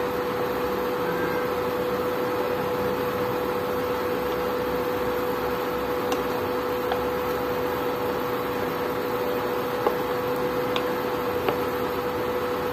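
Portable induction cooktop running under a pan of curry, giving a steady hum with a fixed tone from its cooling fan and coil. A few light clicks of a wooden spoon against the pan come later on.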